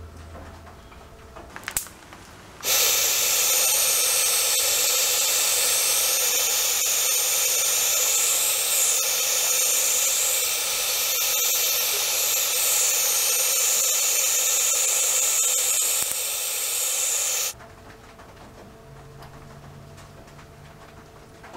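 Aerosol spray paint hissing steadily as a small metal part is painted, starting about three seconds in and cutting off sharply about fifteen seconds later. A brief click comes just before the spraying starts.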